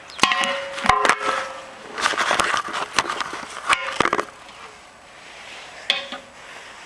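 Metal clanks and scrapes, some with a short ring, as the intake pipe is worked and wiggled onto the top of the carburetor. The clanks come thick through the first four seconds, then one more about six seconds in.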